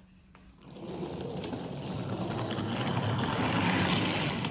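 A toy train running along its track. The sound starts about a second in and grows steadily louder.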